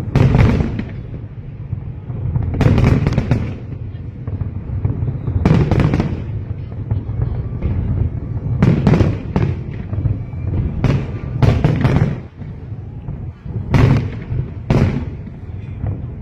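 Aerial fireworks exploding in a display, about ten loud bangs several seconds apart, some in quick pairs, over a continuous low rumble.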